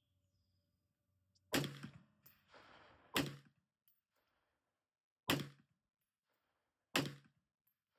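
Four unsuppressed AR-15 rifle shots from a bare 16-inch barrel with no muzzle brake or flash hider, each a sharp crack with a short echoing tail, fired about one and a half to two seconds apart.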